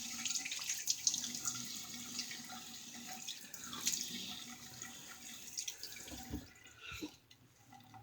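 Tap water running into a bathroom sink and splashing as the shaver rinses after a pass with the safety razor. The water stops about six and a half seconds in, followed by a couple of soft knocks.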